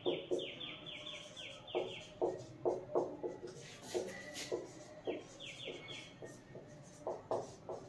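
Felt-tip marker strokes on a whiteboard as words are written, short irregular scratches. A bird's run of quick falling chirps comes in at the start and again about five seconds in.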